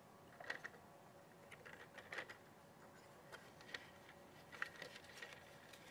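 Faint, scattered handling sounds, light rustles and small plastic knocks, as the collapsible fabric trap body of a BG Pro mosquito trap is pulled up around its plastic cylinder, over otherwise near-silent room tone.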